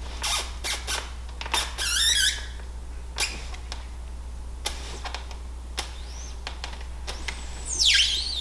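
Double-hung window sash being pushed open, squealing in its frame: a short wavering squeak about two seconds in and a longer, louder wavering squeal starting near the end, with knocks and clicks from the sash in between. The squeal is loud enough to give away someone sneaking in.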